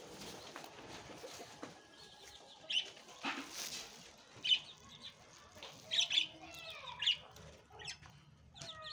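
Backyard chickens, a hen and her chicks, calling in short, sharp peeps and clucks scattered through the second half, a few of them falling in pitch.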